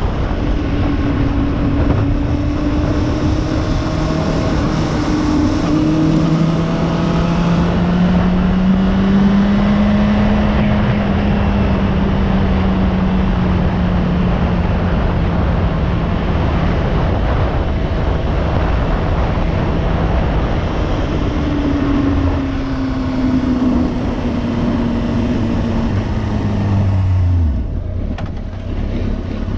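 Motorcycle engine running on the road at a steady cruise under heavy wind rush on the microphone, its pitch rising and falling gently. The engine note drops away near the end.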